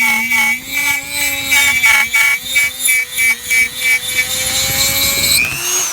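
Dremel rotary tool running at high speed while cutting Coroplast corrugated plastic sheet: a loud steady whine with a rattling buzz that pulses a few times a second. Near the end the whine falls in pitch and dies away as the tool spins down.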